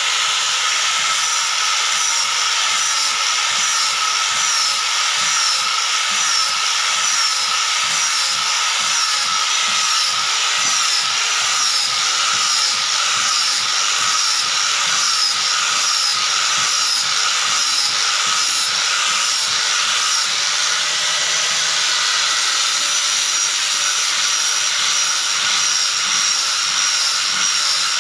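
Electric angle grinder running steadily with an abrasive disc pressed onto a round hardwood slab, grinding the wood surface smooth. It makes a high motor whine that wavers slightly in pitch over the rasp of the disc on the wood.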